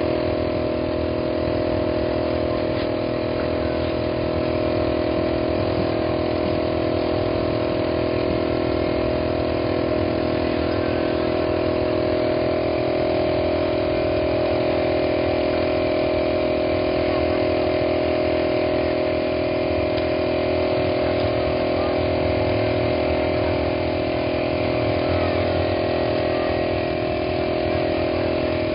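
A steady engine drone, running at an even, unchanging pitch.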